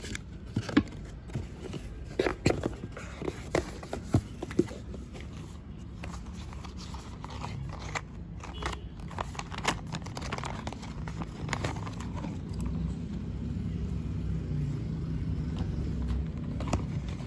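Cardboard headset packaging and its inserts being handled: scattered sharp taps and clicks, densest and loudest in the first few seconds, then softer scrapes and rustles of card and paper. A low steady rumble sits underneath and grows louder in the second half.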